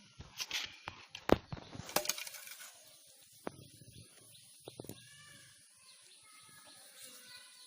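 A few sharp knocks and clicks, the loudest about a second and a half in, then quieter with only faint background sound.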